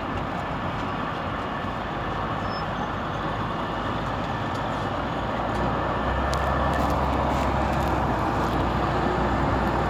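A heavy vehicle's engine running steadily over street traffic noise, its deep rumble growing louder about halfway through.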